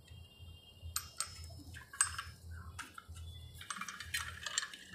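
Light metallic clicks and scraping as an aluminium module clamp is fitted onto an aluminium solar mini-rail, with a few sharp clicks about one and two seconds in and a scrape near the end.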